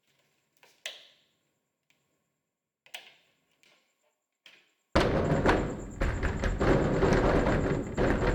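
A few faint clicks and knocks, the strongest about a second and three seconds in, from a door handle and latch being worked in a quiet room. About five seconds in, a sudden loud noise with a deep rumble cuts in and carries on.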